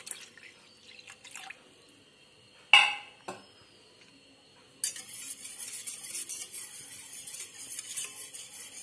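A sharp clink of a vessel on the steel bowl just under three seconds in, then, from about five seconds in, water poured in a steady stream into a steel bowl of whisked curd.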